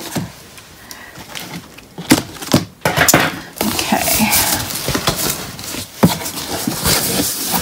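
Cardboard shipping box being opened by hand: its top flaps scraping and rustling against each other, with a few sharp knocks, starting about two seconds in.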